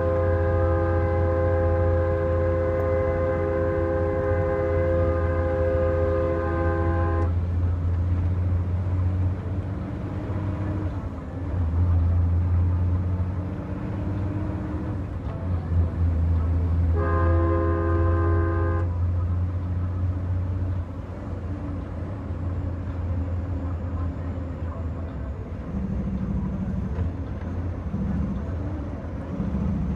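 Heavy diesel truck's engine running steadily, heard from inside the cab. A multi-note air horn sounds one long blast lasting about seven seconds at the start, then a second, short blast of about two seconds around the middle.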